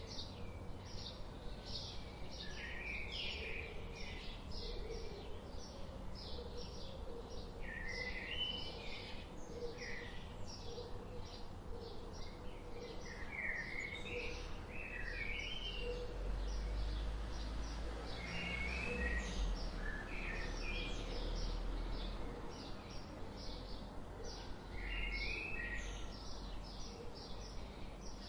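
Budgerigars chattering: rapid short high chirps mixed with warbling, up-and-down twitters, with a low rumble underneath for several seconds in the middle.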